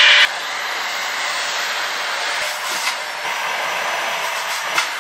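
Vacuum cleaner running with its nozzle held to the opened laptop's insides, sucking out dust; a steady hiss that drops in level and pitch about a quarter-second in, with a few light knocks near the end.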